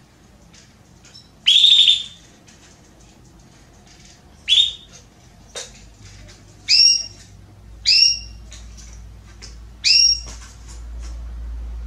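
Female domestic canary giving short, clear calls, about six of them spaced one to two seconds apart, the later ones with a two-pitched ring. It is a hen in breeding condition calling for a male. A faint low hum rises near the end.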